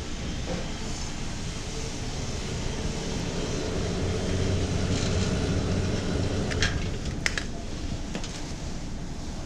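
A steady low mechanical hum, slightly louder in the middle, with a few sharp clicks about seven seconds in.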